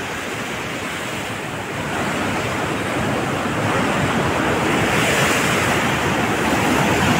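Mountain river rushing through rapids over boulders: a steady noise of white water that swells about two seconds in and then holds.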